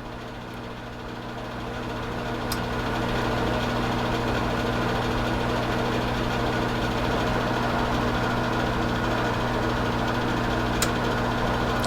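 Steady electrical hum and buzz from a bench power supply, growing louder over the first few seconds as the output is turned up, then holding level.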